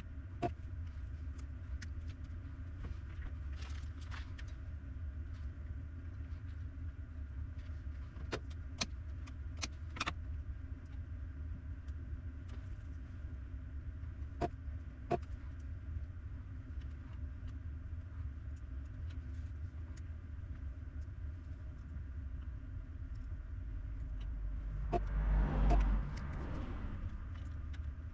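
A steady low hum with scattered sharp clicks and taps, as of small parts and tools being handled. About 25 seconds in, a louder rushing noise with a low rumble lasts about two seconds.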